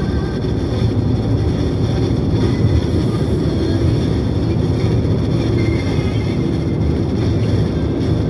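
Steady low rumble of road and engine noise inside a moving car at highway speed, with a Malay song playing faintly underneath.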